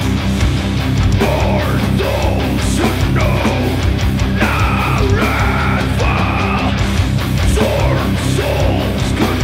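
Doom metal band playing live: heavily distorted electric guitars and drums, loud and steady, with harsh vocals coming in about a second in.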